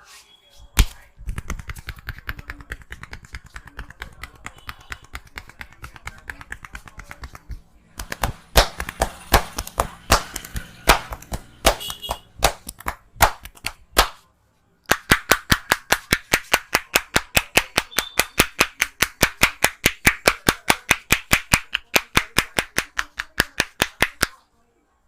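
Hands slapping and tapping rhythmically in a percussive Indian head massage. A fast patter of strikes gives way to louder, uneven slaps, then a steady run of about four claps a second that stops suddenly near the end.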